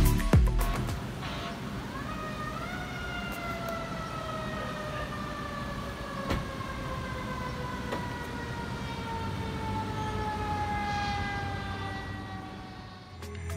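Emergency vehicle siren rising in pitch about two seconds in, then slowly winding down in pitch for about ten seconds, over a low traffic rumble.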